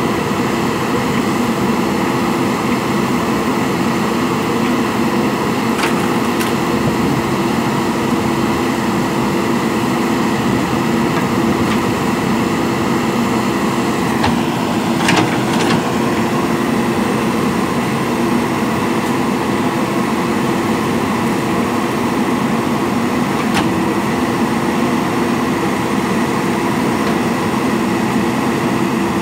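Diesel engine of a JCB backhoe loader running steadily, with a few short knocks.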